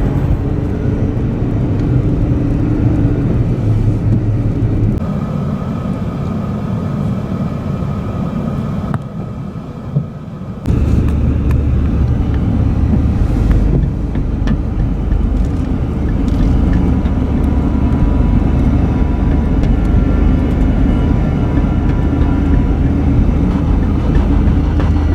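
Steady low rumble of a car driving, heard from inside the cabin. It drops away for a couple of seconds about nine seconds in, then comes back suddenly.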